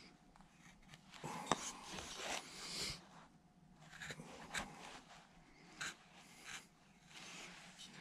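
Quarter-inch V-tool cutting lines into a wooden carving: faint, short scraping strokes, several in a row, with one sharp click about a second and a half in.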